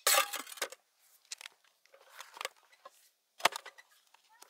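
Cookware and food handling: a loud rustle as the steel lid comes off the pan, small clicks and the crinkle of a plastic tortilla bag, and one sharp knock about three and a half seconds in as the lid is set down on the aluminium camp table.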